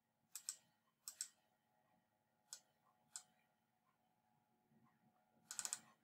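Faint clicking of computer keys: a few scattered pairs and single clicks, then a quick run of several near the end.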